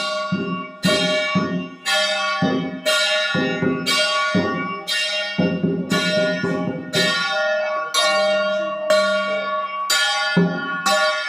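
Music of rhythmic ringing bell-like metal strikes, about two a second, each ringing on briefly. Low drum-like hits fall under most strikes, dropping out for a couple of seconds in the middle.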